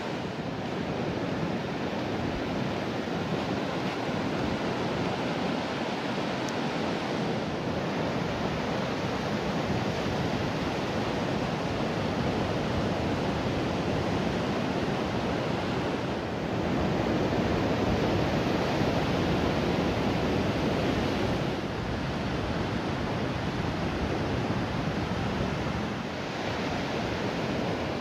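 Ocean surf washing steadily onto a beach, with wind on the microphone; it swells louder for a few seconds past the middle.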